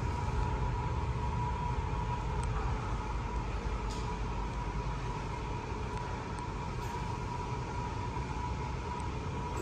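Steady low rumble of shop machinery with a thin, constant whine over it and a few faint ticks.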